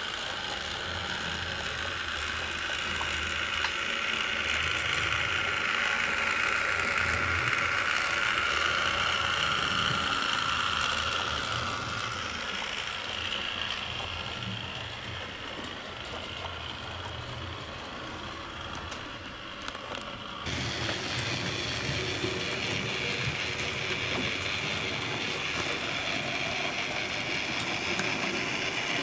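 HO scale model steam trains running on layout track: a steady motor whine in two pitches that drifts slowly, with light clicking of wheels over the rails. About twenty seconds in the sound changes abruptly to another train.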